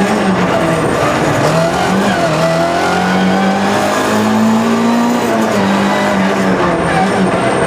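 Rally car's engine heard from inside the cabin under hard driving, its pitch dropping and climbing again through gear changes and lifts, with a brief tyre squeal through a corner around the middle.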